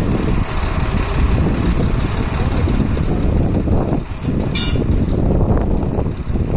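Heavy truck engine running with a steady low rumble and road or wind noise, and a brief sharp click about four and a half seconds in.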